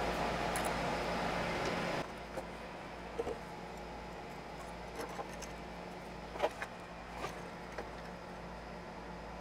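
Light clicks and taps of small metal parts and tools being handled at a workbench while a PCB is fitted and soldered onto a BNC connector, over a steady low hum. A steady background hiss stops abruptly about two seconds in.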